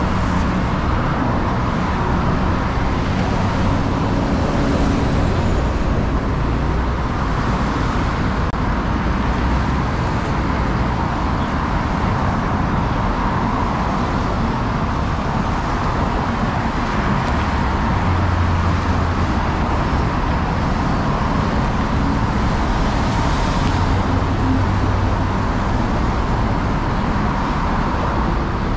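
Steady road traffic noise: a constant stream of cars and heavier vehicles passing on a busy city road, with a deeper engine hum swelling now and then as a larger vehicle goes by.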